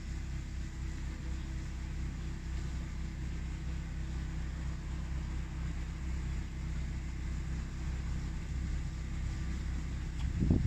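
Steady low mechanical hum with an even drone. About ten seconds in, a louder, rough rumble starts up over it.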